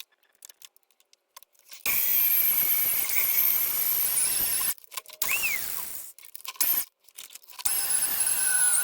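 A power drill boring anchor-point holes, running in two long bursts: one starts about two seconds in and the other near the end, each with a high whine over the grinding noise.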